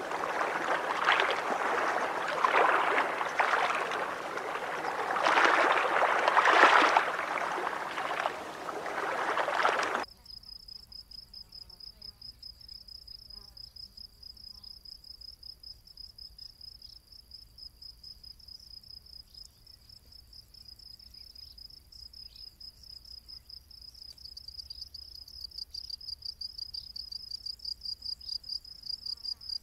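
Water washing and lapping in uneven swells, which cuts off abruptly about ten seconds in. It gives way to a cricket's high, steady trill in quick regular pulses, growing louder near the end.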